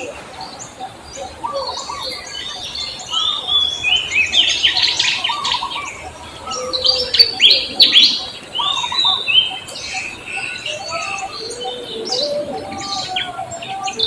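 A chorus of many songbirds, with dense overlapping chirps and short whistles, some higher and some lower notes.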